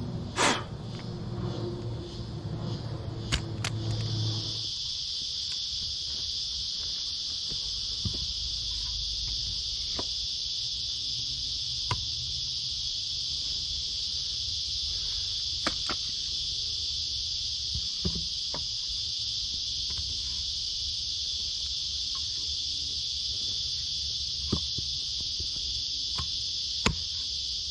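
A loud, steady, high-pitched insect drone fills the bush, with a low hum underneath that stops about four seconds in. Single sharp knocks or taps come every few seconds.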